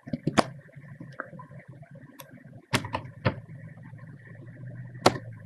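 Scattered single clicks of a computer keyboard and mouse as coordinates are typed in, about eight in all at an uneven pace, the loudest near the end, over a faint steady hum.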